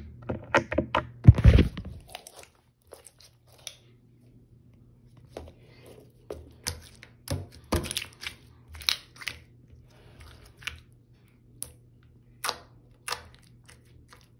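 Sticky glitter slime being squeezed and pulled apart by fingers on a hard surface, giving scattered short wet clicks and crackles. A few loud knocks and rustles come in the first two seconds.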